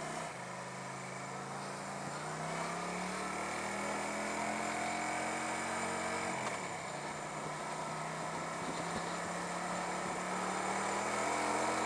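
Carbureted motorcycle engine pulling away under throttle, its note climbing slowly, with a brief drop and recovery about six and a half seconds in, as at a gear change.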